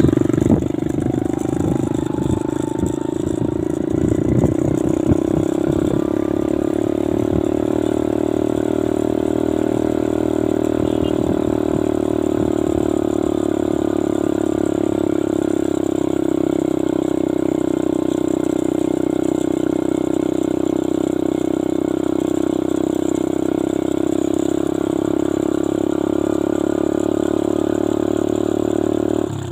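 Engine drone and road noise from a moving vehicle. It picks up speed with a rising pitch and some rattling in the first few seconds, then cruises steadily.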